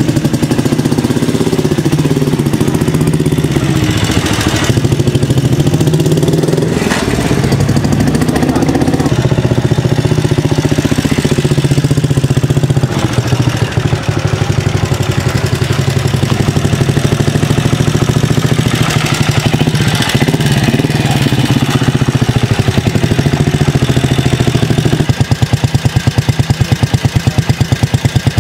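Simson AWO 425's 250 cc four-stroke single-cylinder engine running loudly while the motorcycle is ridden, its revs rising and falling. About 25 seconds in it settles into a steady idle with even exhaust beats.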